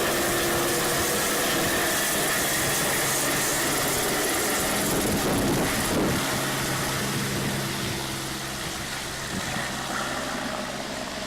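Medical helicopter's turbine engine and rotor running with a steady hum and whoosh, growing quieter about halfway through.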